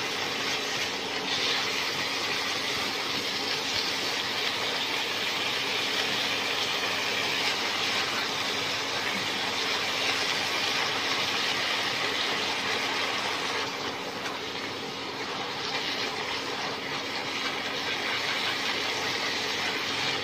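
Minced pork and red curry paste sizzling in a hot nonstick pan as they are stirred with a silicone spatula: a steady hiss that dips a little about two-thirds of the way through, over a faint steady hum.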